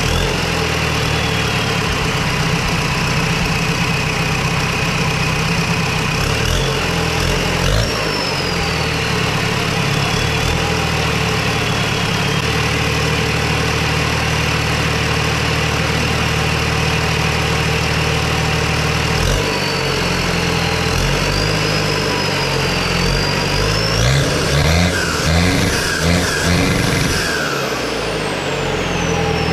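Nissan TD27 2.7-litre four-cylinder turbo diesel engine idling, with a thin turbo whistle drifting up and down above it. Near the end it is revved several times in quick succession, then the whistle falls away as the revs drop.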